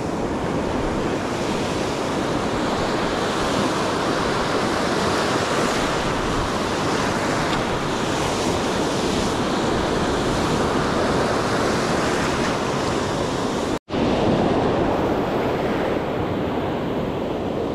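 Pacific Ocean surf washing steadily onto the beach, with a momentary cut to silence about fourteen seconds in.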